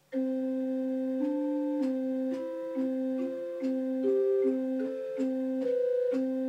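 Pipe organ playing two-note intervals. A high C is held steady throughout while the C an octave below keeps returning between notes that climb step by step up the C major scale, from D to B. A faint click marks each key change.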